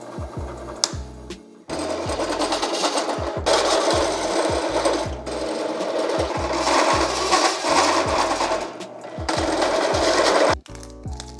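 Drill press cutting through a metal plate: a loud, rough grinding noise in several stretches, starting about two seconds in and stopping abruptly shortly before the end. Background music with a repeating bass line plays throughout.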